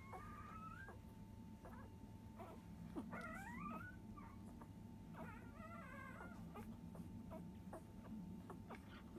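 Five-day-old Labrador Retriever puppies squeaking faintly as they nurse. There are short high cries that rise in pitch near the start and again about three seconds in, and a wavering one around five to six seconds, among many small suckling clicks.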